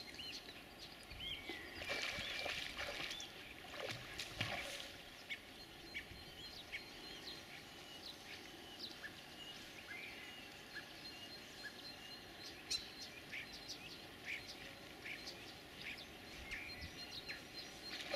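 Small birds chirping in scattered short notes over faint, steady outdoor background noise, with a few brief louder noises about two and four seconds in.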